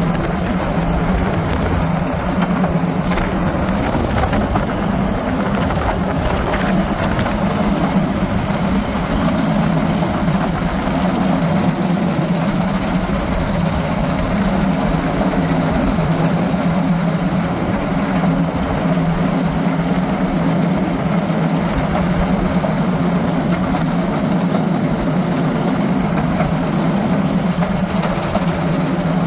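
Railcart engine running steadily as the cart travels along the rails, an unbroken hum with a steady low drone and noise over it.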